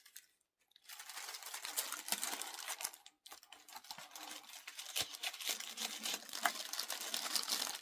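Packaging being handled by hand, rustling and crinkling in a dense run of small crackles, with a brief pause about three seconds in.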